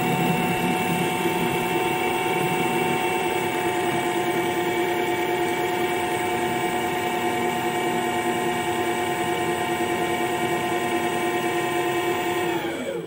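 Homemade CNC lathe running a finishing pass on a steel part: the spindle motor and cutting tool make a steady sound of several tones. Near the end the spindle stops, its pitch falling as it spins down, and the sound dies away.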